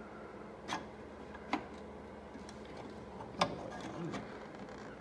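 Sharp metal clicks and taps, three louder ones spread over a few seconds, as the Honda 70's cylinder barrel is worked up and off its long studs.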